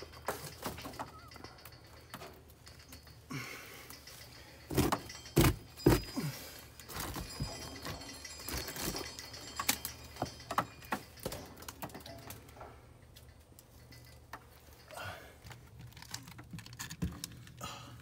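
Old honeycomb being worked loose from a soffit cavity and pieces dropping away: scattered crackles, scrapes and small knocks, with a few sharper knocks about five to six seconds in.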